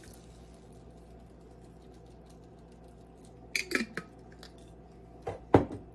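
A glass spaghetti-sauce jar held upside down over a slow cooker and knocked to free the sauce: a few light clicks about three and a half seconds in, then one sharp knock near the end.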